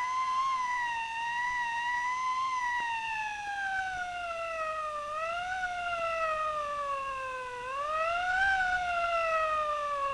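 Police siren sound effect: one siren tone that wavers around a single pitch, then slowly sinks in pitch. About eight seconds in it swoops up quickly and sinks again, then starts rising once more near the end.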